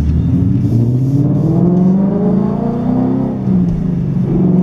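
2015 Mustang GT's 5.0 V8 with Stainless Works long-tube headers and X-pipe exhaust, heard from inside the cabin while accelerating: the exhaust note climbs steadily, holds, dips briefly about three and a half seconds in, then climbs again.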